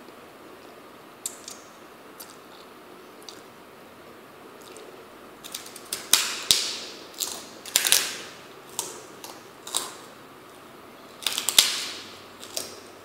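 Giant kerupuk, a crisp Indonesian fried cracker, being bitten and chewed: a run of loud, crisp crunches from about six seconds in, bunched in two clusters. Before that there are only a few faint mouth clicks.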